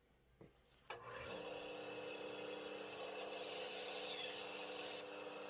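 A woodworking power tool working wood: a click about a second in, then a steady motor hum under a rasping cutting noise that grows harsher through the middle.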